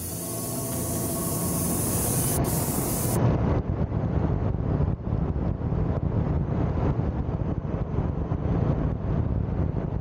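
Logosol B751 Pro electric band sawmill running and cutting a thin board off a squared timber beam: a steady sawing hiss of the blade in the wood over the running electric motor.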